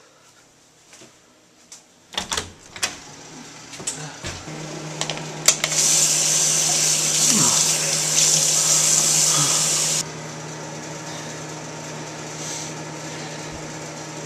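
Bathroom sink tap turned on: water runs hissing into the basin for about four seconds, then cuts off abruptly. Before it come a few sharp knocks and clicks, and a steady low hum comes on and carries on after the water stops.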